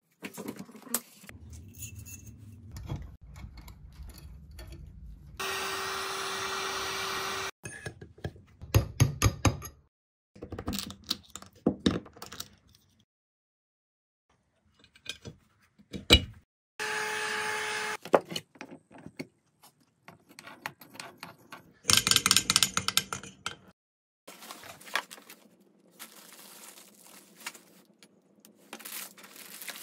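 Workshop sounds of parts being worked on, in short abrupt snippets: clicks, knocks, rattling and scraping, with two brief bursts of a steady small power tool that start and stop suddenly.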